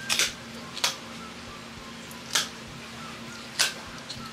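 Kitchen shears snipping through the bones along a Pacific cod's backbone: four crisp cuts at uneven intervals, over a low steady hum.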